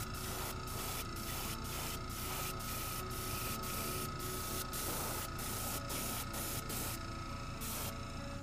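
Airbrush spraying paint in short repeated bursts: its hiss cuts out briefly about twice a second as the trigger is let off, with a longer pause near the end.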